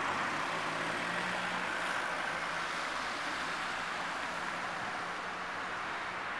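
Road traffic: a steady hiss of cars driving through a town roundabout, with a low engine hum that fades in the middle and comes back near the end.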